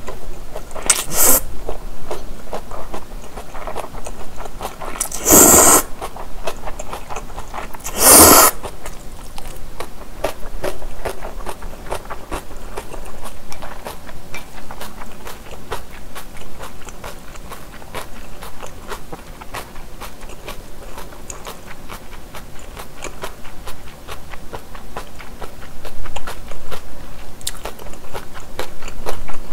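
Close-up eating sounds of japchae: three loud slurps of glass noodles in the first eight seconds or so, then steady wet chewing with many small mouth clicks.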